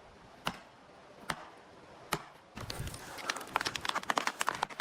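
Three sharp knocks about a second apart, then a rapid, dense crackling of many small impacts from about halfway through.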